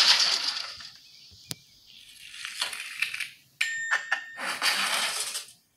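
Animated-film sound effects played back through a tablet's small speaker: a toy wagon crashing and skidding through grass, then loose metal pieces clattering with a few short rings. The sound cuts off abruptly just before the end.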